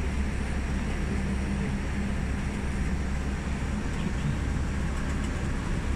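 Steady running noise of a safari park tram heard from on board as it moves along its route: an even, low hum and rumble.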